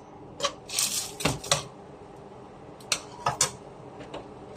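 A cooking utensil clinking and knocking against a pot in a few irregular taps and short clatters, as onions are stirred into melted butter.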